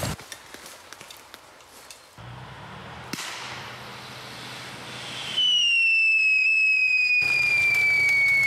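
Training pyrotechnics: a sudden hiss about three seconds in, then a loud, shrill whistle that slides slowly down in pitch for over four seconds. Before it, faint footsteps rustle through dry leaves.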